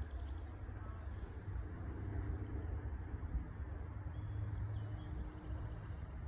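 Small birds chirping in short, high calls now and then, over a low, steady outdoor rumble.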